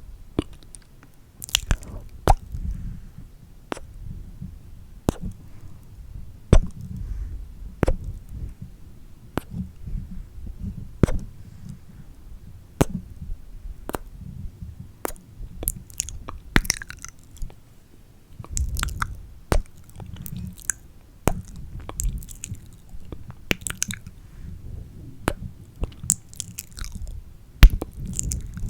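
Close-miked ASMR mouth sounds: wet tongue clicks, lip smacks and kisses coming at an irregular pace, some sharp and loud, with breath and low handling noise between them.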